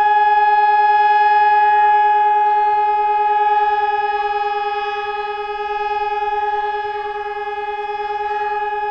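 Emergency alert alarm tone: one steady, buzzy electronic note, organ-like, held without a break, easing slightly in loudness after the middle.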